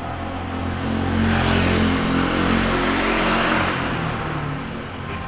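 A motor vehicle driving past: the engine's hum and the road noise swell to a peak about halfway through, then fade.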